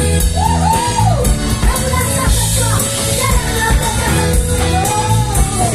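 Live gospel praise band playing between sung lines, with bass and drums keeping a steady beat under a gliding melody line.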